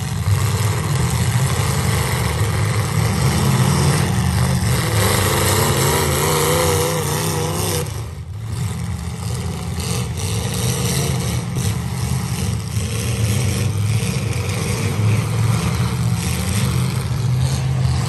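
Several demolition-derby cars' engines running and revving hard together, a dense low rumble with the pitch wavering for a few seconds before the middle, and scattered knocks from cars hitting each other.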